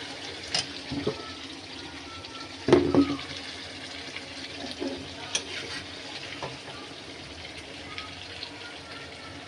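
Kitchen cooking sounds: a steady hiss with a few sharp knocks and clatters, the loudest cluster about three seconds in.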